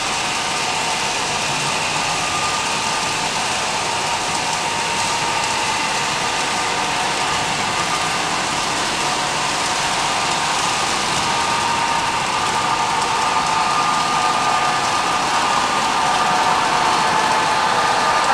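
Model Union Pacific diesel train approaching along the layout track: a steady running hiss with a few faint tones that grow louder toward the end as it nears.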